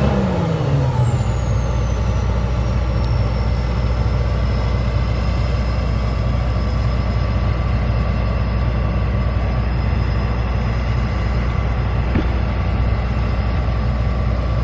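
Heavy farm-machine engine dropping in speed over about the first second, with a high whine falling in pitch alongside it, then running steadily at the lower speed.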